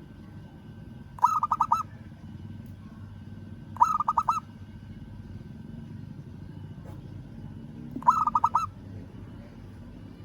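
Local-strain zebra dove (perkutut) cooing three times, each phrase a quick run of rapid pulsed coos lasting about half a second, a few seconds apart. It is the call a male uses to challenge a rival.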